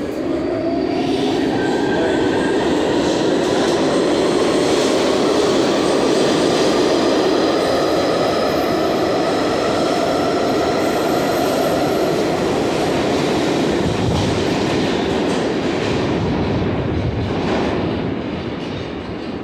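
New York City subway train pulling out of the station. Its motor whine rises in pitch as it speeds up, over loud wheel and rail noise with some clickety-clack, and the sound fades near the end as the train moves off.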